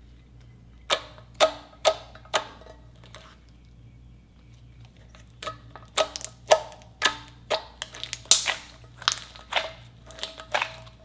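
Thick white slime being poked and kneaded by hand, giving sharp clicking pops as trapped air bursts: four about a second in, then a steady run of roughly two a second through the second half.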